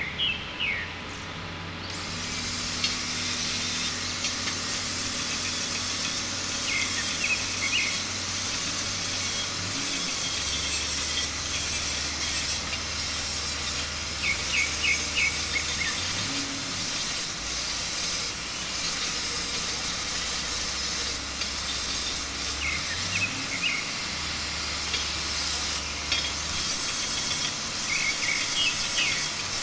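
Corded angle grinder grinding on a bent metal pipe, a steady high hiss broken by short dips as the disc comes off the work. A low hum sits underneath, and birds chirp briefly a few times.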